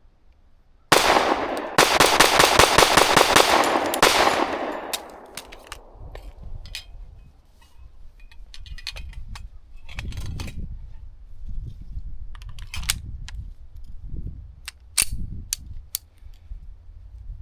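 Ported Girsan Witness 2311 Brat .45 ACP pistol fired as fast as the trigger allows, a dense string of shots lasting about three and a half seconds and starting about a second in. After it come scattered light clicks and knocks.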